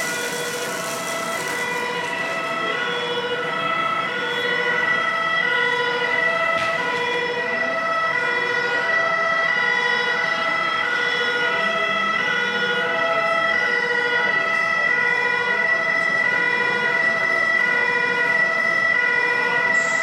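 German-style two-tone fire engine siren ("tatü-tata") played by an RC fire truck model's sound module, alternating steadily between two pitches. A steady high tone runs under it throughout.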